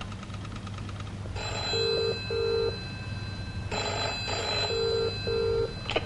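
A telephone ringing twice, each ring a double 'brr-brr' in the old British cadence. It follows a faint run of rapid, evenly spaced clicks in the first second or so.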